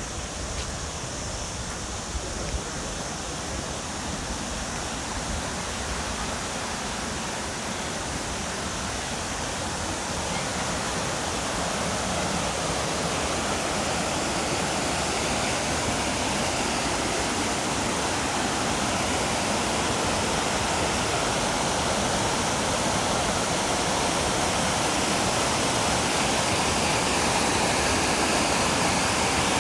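Waterfall rushing in a steady, even wash of falling water, growing gradually louder.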